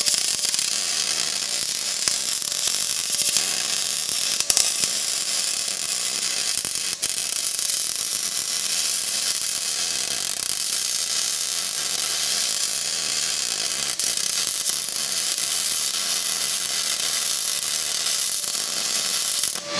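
MIG welding arc on cast iron: a steady, continuous crackle from Rockmount Jupiter wire under 75/25 argon/CO2 shielding gas, which is what a good weld on cast iron needs to sound like. It runs unbroken for the whole bead and stops just before the end.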